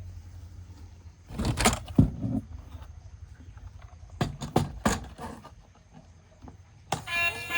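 Toys and their packaging being handled: clusters of plastic clicks, knocks and rustling about a second in and again around four to five seconds in, over a low hum. Near the end a tune with steady pitched notes starts.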